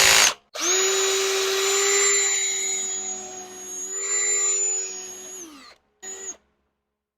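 Electric power drill running. Short bursts lead into one steady run of about five seconds, with the pitch dipping briefly under load about four seconds in, then one more short burst. It is being used to work out an old rubber rear-suspension bushing.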